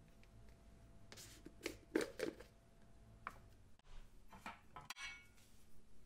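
Light clicks and knocks of a plastic canister being handled and its lid opened, loudest about two seconds in, with a brief rapid rattle of clicks near the end.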